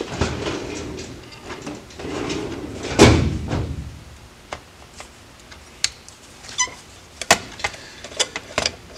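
Edelbrock 1406 carburetor body being shifted and worked on a metal bench top. A scraping slide is followed by a heavy knock about three seconds in, then a run of light metallic clicks and clinks from the tool and small parts.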